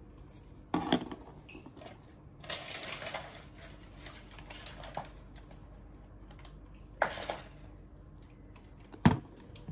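Small plastic toy parts handled in the hands, making scattered clicks and taps, with a short rustling scrape about two and a half seconds in. The loudest is a sharp plastic click near the end.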